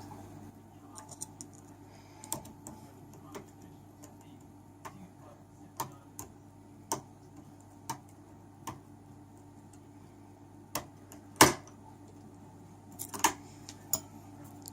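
Dimple lock pick and tension tool working the pins of a Master five-pin dimple padlock: scattered light metallic clicks and ticks, with one much louder sharp click about eleven seconds in and a few more clicks shortly after.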